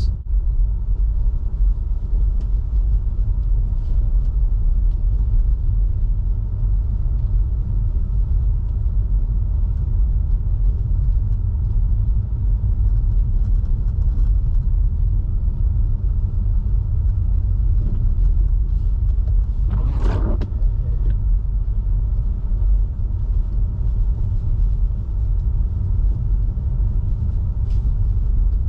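Steady low rumble of tyre and road noise from a Tesla Model 3 driving through snow on all-season tyres, with no engine sound. A brief sharper sound comes about twenty seconds in.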